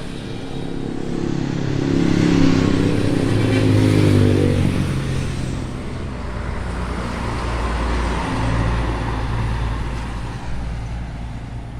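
Motor vehicle engine running, its note falling about two to four seconds in, then settling into a steady low rumble.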